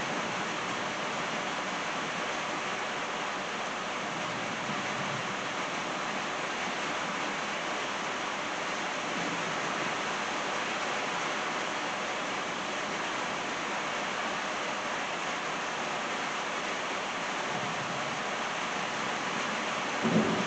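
Steady rain falling on trees and a wet driveway, an even hiss, with faint low thunder rumbling now and then. A sharper clap of thunder breaks in near the end.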